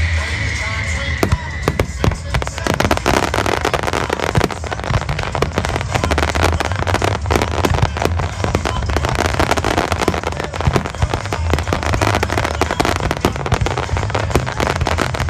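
Fireworks display: a dense, continuous barrage of shells bursting with rapid popping and crackling.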